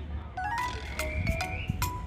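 Background music: a light melody of short ringing notes, about four in two seconds.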